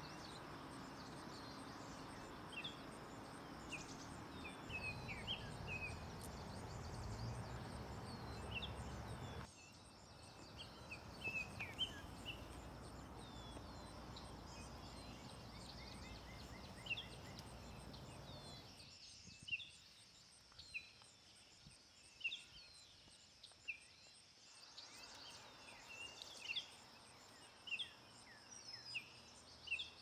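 Forest ambience: small birds chirping in short, scattered calls over a steady background hiss. The background noise changes abruptly a third of the way in and again about two-thirds in, as between separately recorded stretches.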